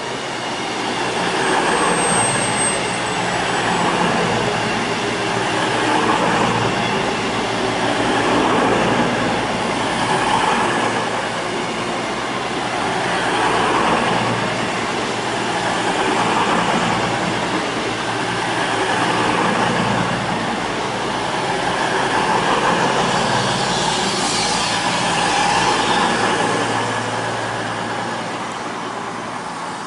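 Class 390 Pendolino electric train passing along the platform, a steady rumble of wheels on rail. The loudness swells and falls about every two to three seconds as each coach goes by, and it eases off near the end as the last coach passes.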